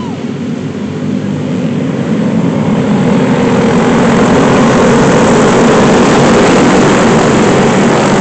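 Racing go-kart engine running hard, heard up close from on the kart. It grows louder over the first few seconds, then holds steady.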